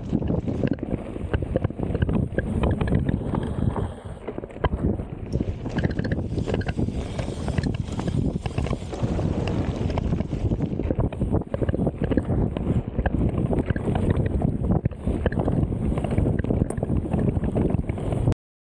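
Wind buffeting an action camera's microphone as a mountain bike rides a rough trail, with frequent small knocks and rattles from the bike over the ground. It cuts off suddenly near the end.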